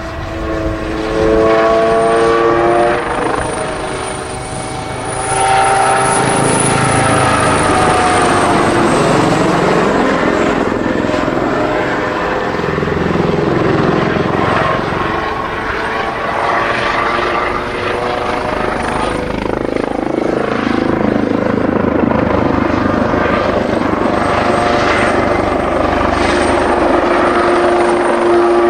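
Kawasaki OH-1 helicopter flying low past: loud rotor and turbine noise with a whine of several tones that bends in pitch as it passes.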